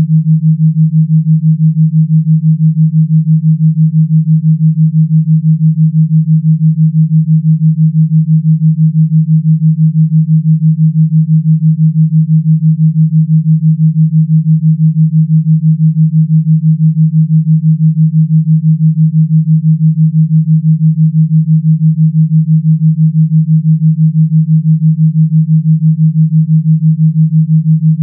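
An electronically generated pure tone, held steady at one low pitch and pulsing rapidly in loudness: a continuous gamma-wave tone track.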